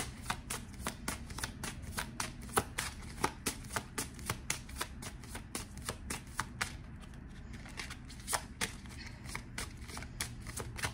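Tarot cards being shuffled by hand: a quick run of soft card clicks, several a second, with a brief lull about seven seconds in.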